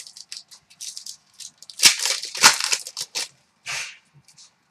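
Hockey trading cards being handled and flicked through by hand: a quick run of papery rustles and slaps, loudest about two seconds in and again near four seconds.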